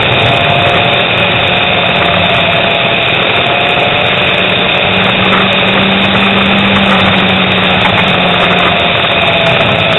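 Motorcycle engine running at a steady road speed, a loud continuous drone mixed with rushing noise, its lower tone growing stronger for a few seconds past the middle.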